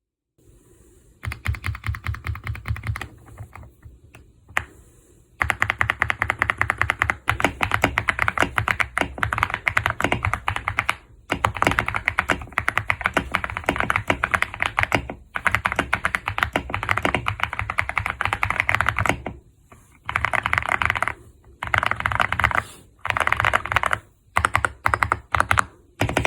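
Aula F99 Pro mechanical keyboard being typed on fast, a rapid stream of keystrokes in runs of several seconds with brief pauses between them, the runs growing shorter near the end.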